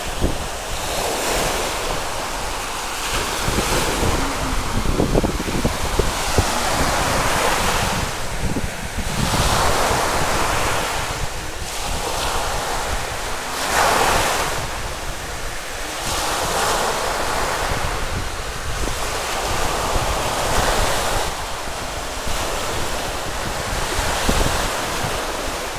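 Small waves breaking and washing up a sandy shore, the surf swelling and easing every few seconds, with wind buffeting the microphone in a low rumble.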